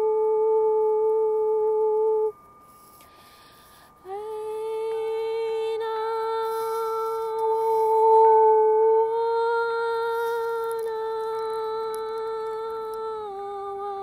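A person humming long held notes in vocal toning. A note is held for about two seconds and there is a short pause as if for breath; then one long note slides up into place and is held for about nine seconds, stepping slightly lower near the end.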